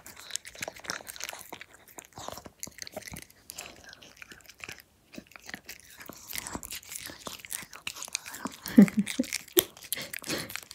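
Maltese dog eagerly licking and smacking at a squeeze-tube lickable treat, with quick, irregular wet clicks of tongue and lips. The loudest smacks come about nine seconds in.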